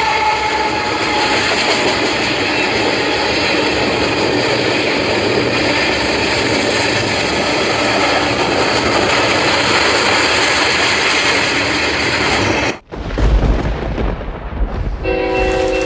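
An HO-scale model train running past with a steady rushing noise, after a horn chord that fades in the first half second. Near the end the sound cuts off abruptly and a deep rumble follows. About a second before the end, the model locomotive's multi-tone horn starts to sound.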